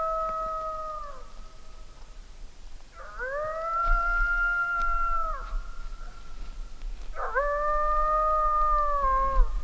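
Coyote howls: three long howls, each rising quickly to a held pitch and dropping off at the end. The first is already sounding and ends about a second in.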